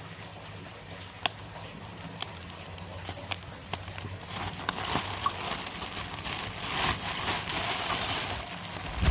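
Several sharp light clicks and knocks, then water splashing and sloshing that builds from about halfway through, over a steady low hum.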